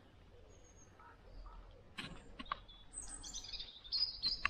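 Small woodland birds singing, with a burst of high, fast twittering notes in the second half. A few sharp clicks are heard about halfway through and near the end.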